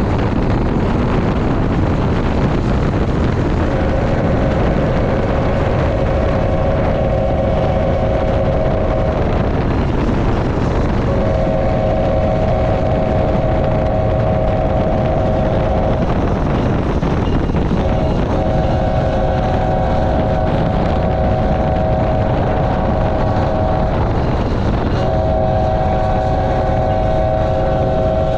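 BNSF freight locomotive's air horn sounding a chord in four long blasts of about five to six seconds each, the last still going at the end. Under it runs the steady rumble of the train moving at speed.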